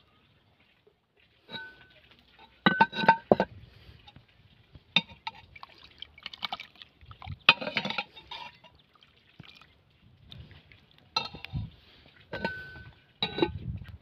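A string of sharp clinks with short ringing, a metal spoon knocking against earthenware pots and dishes, with some liquid stirred in a pot of soup.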